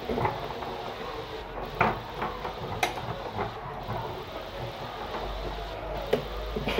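Scattered clicks and light knocks of a screwdriver and stiff cables being worked into the terminals of a plastic meter box, with a low rumble coming in about five seconds in.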